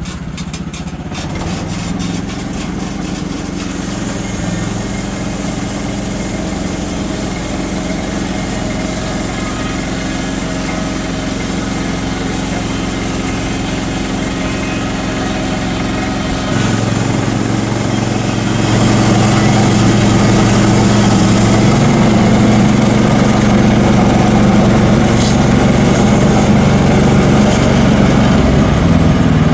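Sawmill engine running steadily while the blade cuts a slab off a cedar log. The sound changes about two-thirds of the way through and grows louder to the end.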